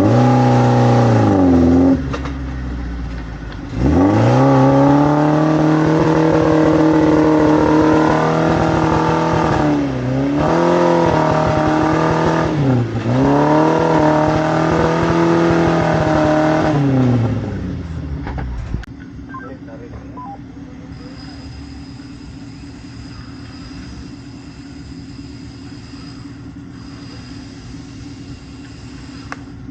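An off-road 4x4's engine revving hard under load. The pitch falls off and climbs back early on, is held high with two brief dips, then drops about two-thirds of the way through to a quieter, steady running.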